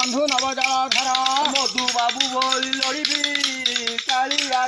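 A man singing long held notes in a Daskathia chant, over fast, continuous clicking of the hand-held kathi wooden clappers.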